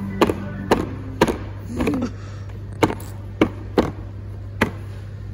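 A series of sharp knocks or clacks, about eight in all at uneven intervals of roughly half a second, over a steady low hum.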